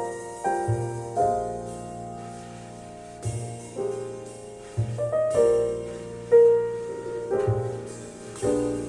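Slow solo piano intro to a ballad, played back through KEF Q300 bookshelf loudspeakers: chords with bass notes struck about once a second and left to ring.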